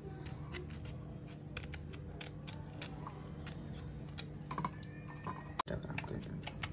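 Small kitchen knife paring the tough spiny rind off a raw jackfruit wedge: faint, irregular crisp clicks and crunches as the blade cuts through, several a second, over a low steady hum.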